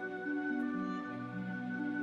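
Slow background music: several held notes sound together and move to new pitches every half second or so, with no beat.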